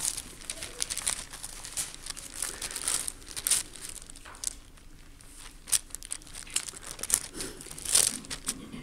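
Bible pages being leafed through and turned by hand, papery rustling and crinkling in irregular strokes, thickest in the first few seconds, then a few separate louder page turns, as a passage is looked up.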